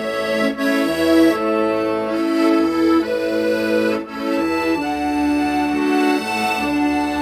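Accordion playing a slow melody in held reed notes over a steady left-hand bass-and-chord accompaniment.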